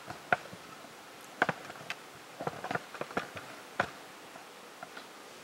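About a dozen light clicks and knocks at irregular intervals, sharp and short, with no steady sound between them.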